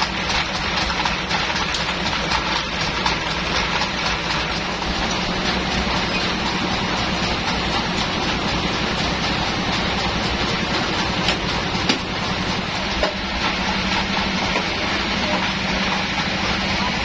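Sawmill band saw and the engine that drives it running steadily, a constant hum with a noisy whir over it, and one short knock about twelve seconds in.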